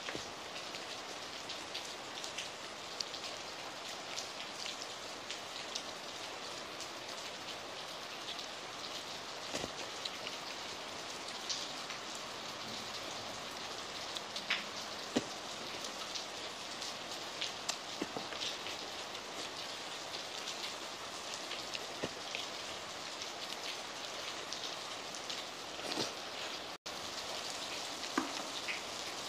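Heavy rain falling steadily, an even hiss of downpour, with occasional sharp clicks scattered through it.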